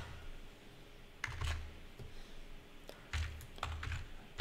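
Keystrokes on a computer keyboard as a word is typed: a few scattered taps, then a quicker run of several near the end.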